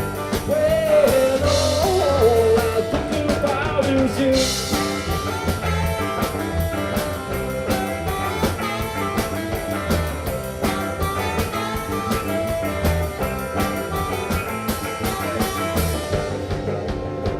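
Live rock band playing an instrumental passage, with drums and bass under it. A lead line bends up and down in pitch during the first few seconds.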